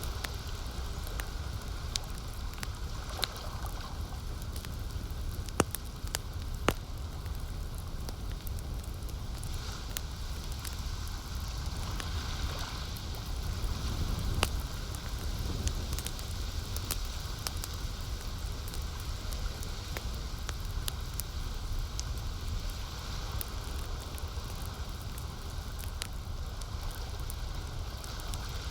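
Campfire crackling, with irregular small clicks and a few louder pops, over a steady low wash of lake water.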